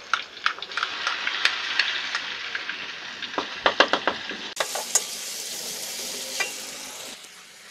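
Garlic and chili paste sizzling in hot oil in a metal wok while a slotted metal turner stirs and scrapes through it, with sharp clicks of metal on the pan. The sizzle fades near the end.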